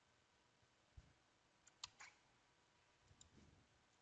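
Faint computer mouse clicks against near-silent room tone: a soft thump about a second in, then two clicks close together about two seconds in.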